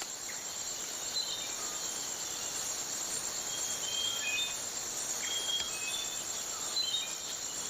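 Rainforest ambience: a steady, high-pitched chorus of insects, with a few short, high whistled notes scattered through it.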